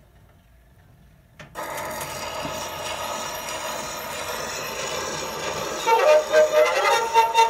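Edison Diamond Disc phonograph: a click about a second and a half in as the reproducer's stylus meets the spinning disc, then steady surface hiss from the lead-in groove. Near the end the recorded music begins, played acoustically through the machine's horn.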